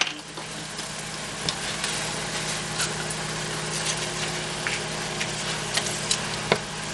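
Steady low hum of a kitchen appliance, with scattered light clicks of plastic measuring spoons on a ring being handled; one sharper click about six and a half seconds in.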